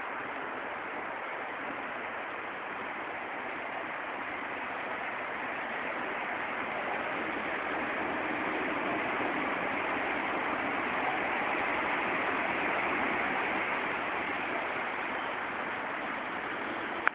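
EN57 electric multiple unit rolling into the platform over a steady background hiss. The noise builds as the train nears, peaks about two-thirds of the way through, then eases as it slows to a stop.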